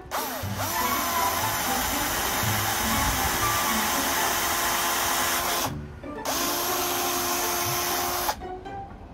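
Cordless drill boring a hole into the lid of a wooden box: the motor runs with a steady whine and the bit cutting wood for about five and a half seconds, stops briefly, then runs again for about two seconds.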